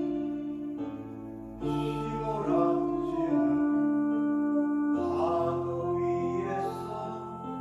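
Slow instrumental music with held chords that change about two seconds in and again about five seconds in.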